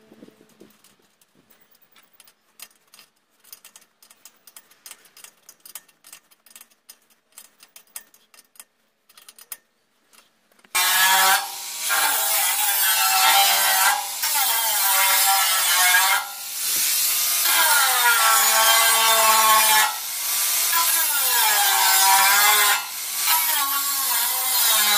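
Faint scattered clicks and taps, then about eleven seconds in a small handheld power tool starts cutting sheet metal. It is loud, and its pitch sags and recovers as it bites, with short breaks every few seconds.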